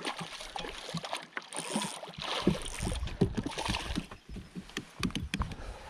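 Hooked smallmouth bass splashing and thrashing at the surface beside the boat as it is fought in, with water sloshing and scattered sharp knocks.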